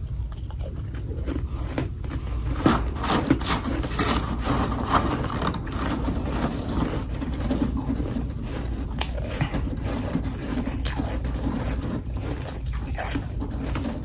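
Dense, irregular crunching and crackling of humidifier freezer frost, with a few sharper cracks in the first few seconds, over a steady low hum.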